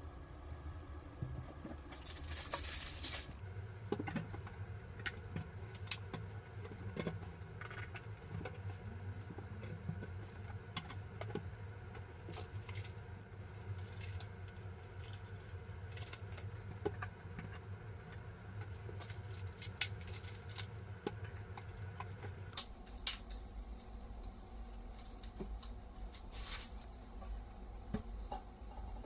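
Light clicks, taps and clinks of plastic bottles and mesh loofahs being handled and set into black wire shower baskets on a tiled wall. There is a brief hiss about two seconds in, over a low steady hum.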